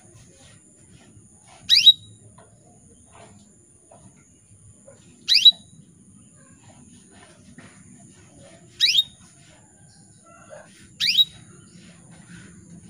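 Female canary calling with single short, sharp chirps, four of them, spaced a few seconds apart: the call of a hen in breeding condition calling to a male.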